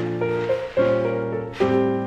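Background music: a light instrumental tune, its notes and chords changing about once a second.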